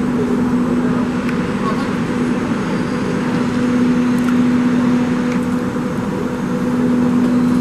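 Electric trains at an underground station platform: a steady low electric hum over a rumbling background noise, echoing in the enclosed hall.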